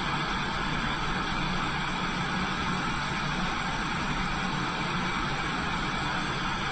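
Lampworking bench torch burning with a steady, unbroken rushing hiss while glass is heated in its flame.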